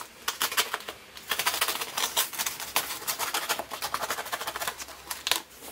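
Orange snap-off utility knife slicing through packing tape and cardboard on a shipping box: a fast, irregular run of scratchy clicks and scrapes.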